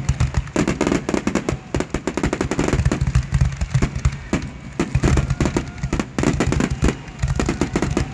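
Consumer fireworks going off in a rapid, continuous run of crackles and pops, many cracks a second.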